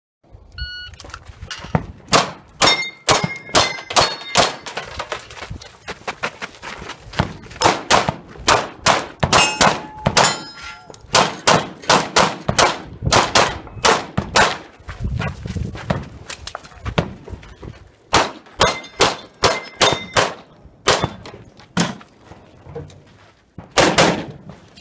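Pistol shots fired in quick strings, dozens in all with a few short pauses, some followed by a brief ringing clang from steel targets being hit.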